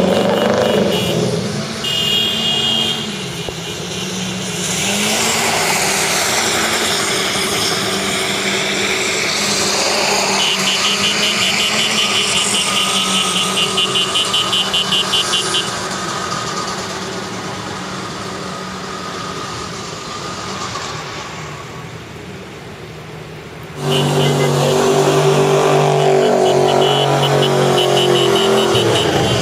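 Engines of drifting SUVs and pickups revving, with tyres spinning on wet pavement; the engine sound rises and falls in pitch, and a rapid pulsing high tone sounds for several seconds in the middle. About 24 s in the sound suddenly gets much louder with a pickup engine revving hard.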